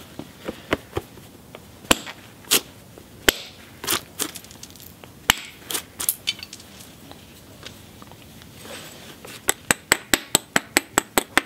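Knapping tools tapping the edge of a cherty mudstone biface: sharp, light clicks, a few scattered ones at first, then from about nine seconds in a quick, even run of taps, about five a second.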